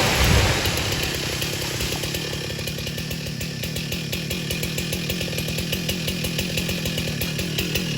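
Two-stroke chainsaw engine running steadily, loudest in the first second and then settling slightly.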